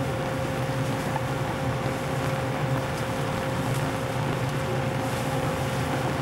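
Steady machinery and ventilation hum inside a battleship's fire-control compartment, with a low drone and a thin, steady high whine running through it.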